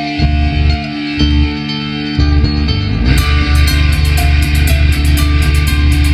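Rock music with guitar and a heavy bass line; drums with cymbals kick in about halfway through, after a short rising sweep.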